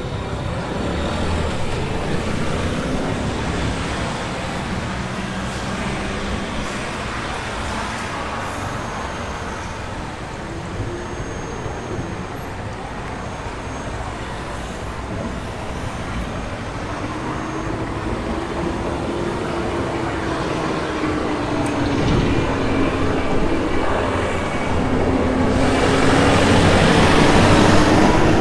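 Steady road traffic along a city street. In the second half a vehicle engine's hum rises and bends in pitch as it draws closer, and the traffic is loudest near the end as a vehicle passes close with a strong rush of tyre and air noise.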